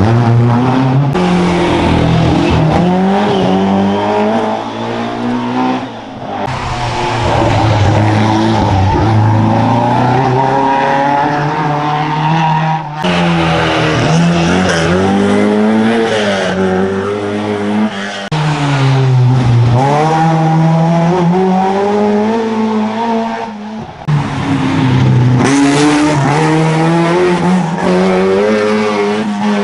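Historic rally car engine driven hard on a stage: the pitch repeatedly climbs and drops back as it goes up and down through the gears, with several sudden lifts off the throttle and some tyre squeal.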